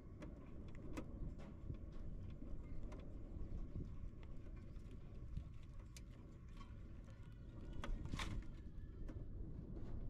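Short clicks and rustles of nest twigs as an adult common myna works at a nest of nestlings, over a low steady rumble. The clicks are scattered, and the loudest comes about eight seconds in.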